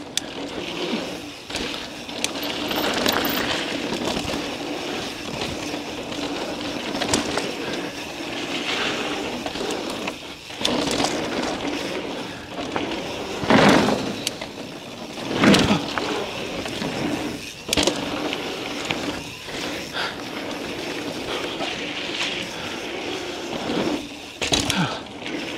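Mountain bike rolling fast down a dry dirt trail: continuous tyre and frame rattle noise, with a few sharp thuds near the middle as the bike hits bumps in the trail.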